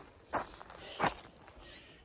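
Two crunching footsteps on a gravelly dirt trail, about two-thirds of a second apart.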